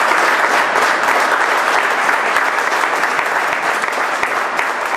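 Audience applauding with sustained, dense clapping at the end of a speech.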